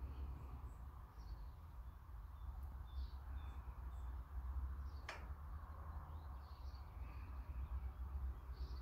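Quiet garden ambience with faint, scattered bird chirps over a steady low rumble on the phone microphone. A single sharp click comes about five seconds in.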